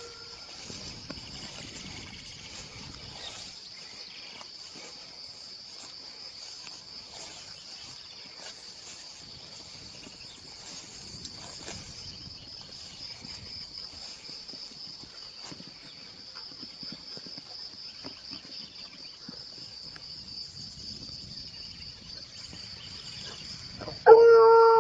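A steady, high insect chorus with faint scattered crackles. Near the end an American foxhound starts a long, loud, held bay while working the trail.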